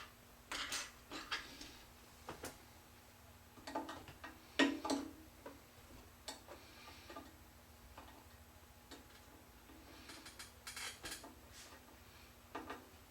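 Light clicks and taps of small model-airplane parts and tools being handled on a workbench. They come in a few short clusters, the loudest about four and a half seconds in.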